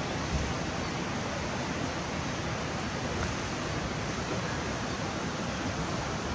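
Steady outdoor ambience beside a shallow rocky river: an even rushing hiss with some uneven low rumble underneath.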